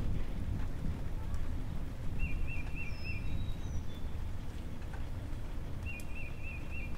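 A bird singing a short phrase of four quick rising notes twice, about four seconds apart, with a few thin higher chirps in between, over a steady low rumble.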